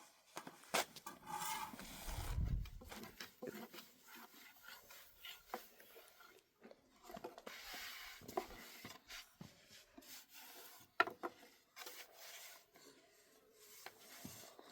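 Faint rubbing and scattered light wooden knocks from hand work at bread-making, with one dull thump about two and a half seconds in.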